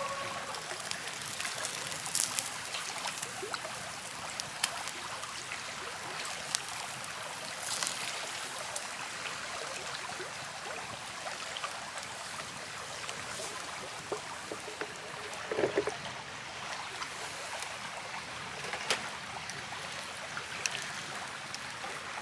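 Steady rush of flowing river water, with scattered sharp pops and crackles from a wood campfire.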